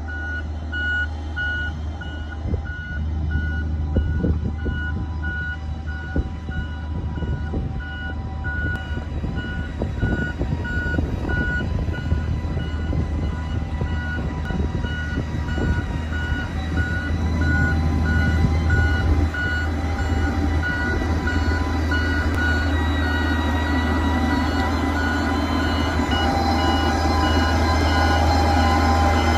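XCMG GR165 motor grader's diesel engine running steadily under load as the blade works the gravel, while a reversing alarm beeps about twice a second, stopping near the end.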